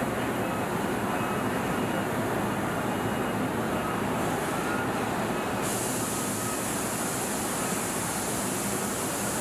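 Steady machine noise of a robotic paint booth. About six seconds in, a high hiss comes in as the robot spray guns fire paint onto the car body.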